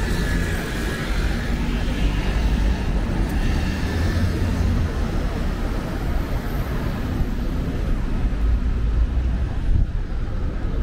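Town street ambience: a steady low rumble of passing traffic.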